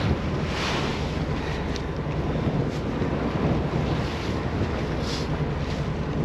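Wind rushing over the microphone on the deck of a party boat, with a steady low hum underneath.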